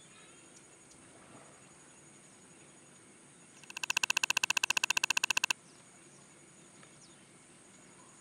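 Steady forest-clearing ambience with a constant high insect whine and faint bird calls. A few seconds in, a loud rapid clicking trill of about a dozen pulses a second runs for about two seconds and stops abruptly.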